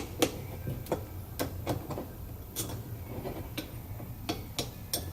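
Light, irregular clicks and taps of small metal parts as the blade is worked off a Dremel Multi-Max oscillating tool, about nine sharp ticks spread unevenly over a few seconds.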